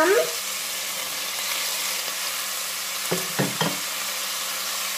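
Sliced vegetables frying in hot oil in a pan, a steady sizzle.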